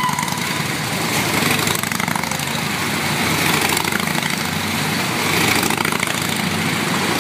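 Motorcycle engine running steadily as the rider circles the walls of a steel-mesh globe-of-death cage.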